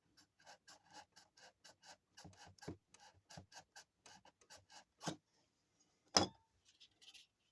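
Hand file rasping in quick back-and-forth strokes, about four a second, cutting a small notch to hold the ring, followed by two sharper knocks, the second the loudest.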